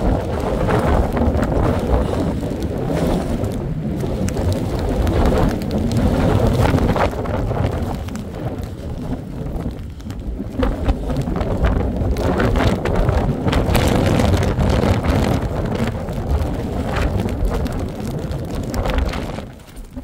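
Strong wind buffeting the microphone: a loud, low rumble that swells and eases with the gusts, dropping away suddenly near the end.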